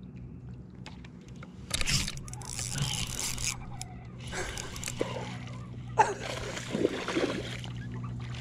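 Hooked fish splashing at the surface during the fight, in several bursts of splashing about two seconds in, again near the middle and again about six seconds in, over a steady low hum.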